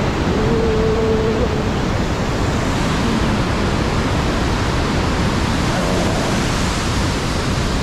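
Whitewater rapids of a mountain river: a loud, steady rushing of water over boulders.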